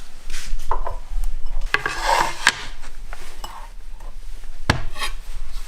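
Knife scraping and cutting into a black radish: a run of rasping scrapes, loudest about two seconds in, with a sharp knock late on.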